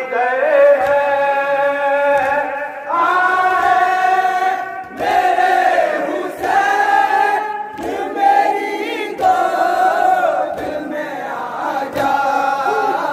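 Men's voices chanting an Urdu noha, a Shia mourning lament, in long held phrases of a few seconds each, with no instruments: the reciter leads and the massed mourners sing along.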